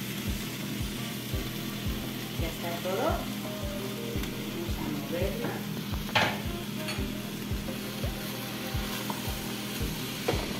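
Sliced mushrooms, bell peppers and onion frying in oil in a pan, a steady sizzle; near the end a spatula stirs them around.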